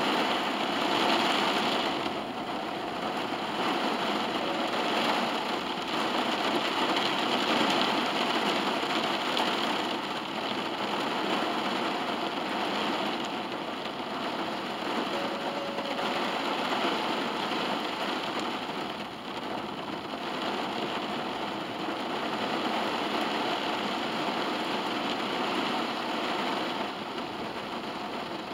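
Heavy rain drumming steadily on a car's roof and windows, heard from inside the cabin.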